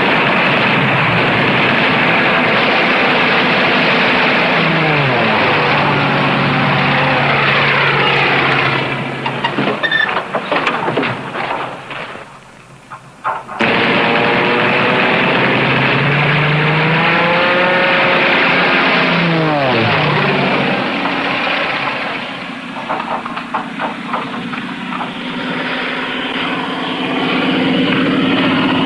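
Propeller fighter planes flying past, the engine drone sweeping down in pitch with each pass. The sound dips almost away briefly near the middle, and clusters of sharp crackling bursts come around ten seconds in and again a little after twenty seconds.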